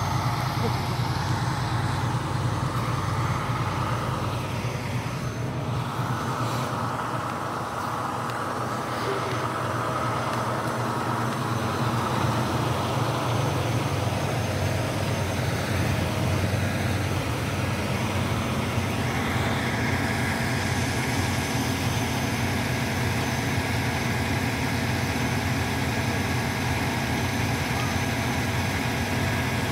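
Heavy wrecker tow truck's diesel engine running steadily at a constant speed while it swings a crashed box truck on its underlift.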